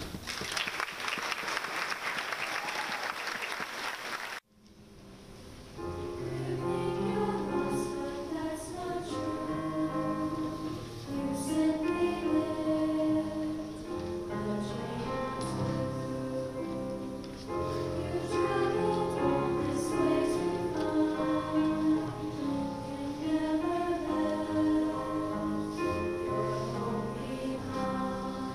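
Audience applause for about four seconds, cut off abruptly. Then a mixed high school choir sings in sustained chords, accompanied by piano.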